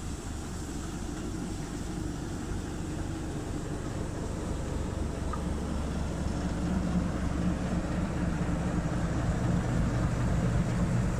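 Small diesel shunting locomotive's engine running at low revs as it pulls in, a steady low drone that grows louder as it comes close and passes.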